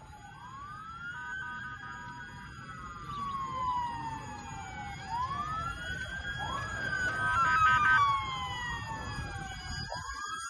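Several emergency-vehicle sirens wailing together, their pitches rising and falling out of step with one another and growing louder, over a low rumble of street noise.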